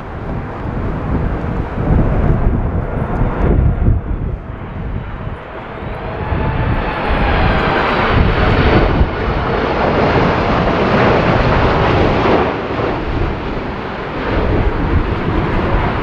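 Boeing 747-8 freighter's four GEnx turbofan engines on final approach, growing louder as the jet passes close by, with a whining engine tone coming in about six seconds in. Gusty wind rumbles on the microphone in the first few seconds.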